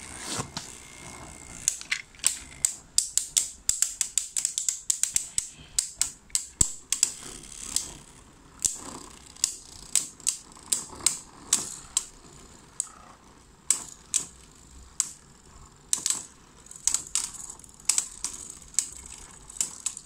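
Two Beyblade spinning tops battling in a plastic stadium: rapid, irregular clacks as they collide again and again, closely packed for the first several seconds and more spaced out later.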